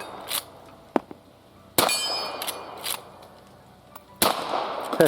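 Two shots from a Rossi R92 .357 Magnum lever-action carbine, about two and a half seconds apart, each met at once by the ringing clang of a struck steel target. Lighter clicks between the shots are the lever being worked.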